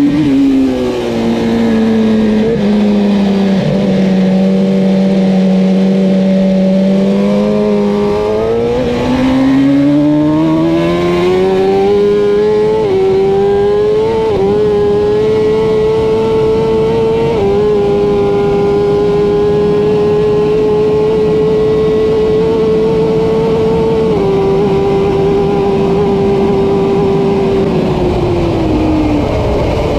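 Kawasaki Ninja ZX-10R superbike's inline-four engine at race pace, heard from the rider's helmet over steady wind rush. The engine note falls as the bike slows near the start, holds low for several seconds, then climbs steadily under hard acceleration and holds high at speed with a few brief dips, falling away again near the end as the rider rolls off.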